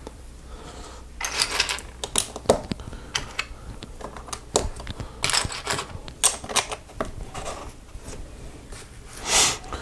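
Small plastic Lego pieces clicking and rattling in scattered bursts as they are picked through, handled and pressed together. There is a brief rush of noise near the end.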